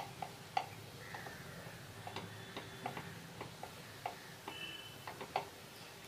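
Silicone spatula stirring thick peanut paste in a nonstick pan, knocking and scraping against the pan in a series of irregular light clicks.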